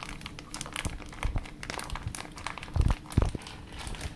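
Clear plastic food pouch crinkling and crackling as defrosted fresh dog food is squeezed out of it into a dog bowl, with two dull thumps close together about three seconds in.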